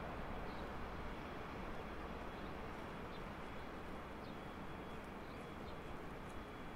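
Steady distant city rumble of early-morning urban background noise, with a few faint short high chirps over it.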